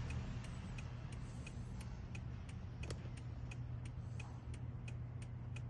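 Steady ticking, about two sharp ticks a second, inside a 2010 Toyota Avalon with the ignition switched on during smart-key programming, over a low steady hum.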